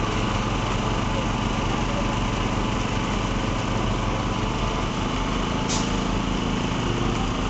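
A small engine running steadily at constant speed, from machinery working the concrete pour. About three-quarters of the way through there is a brief, sharp hiss.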